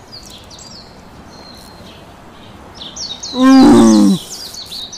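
Small birds chirping steadily. About three seconds in, a loud, drawn-out vocal cry lasting about a second.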